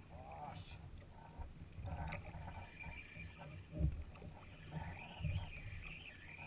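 Water sloshing against a fishing kayak's hull, with uneven low bumps and one louder knock about four seconds in.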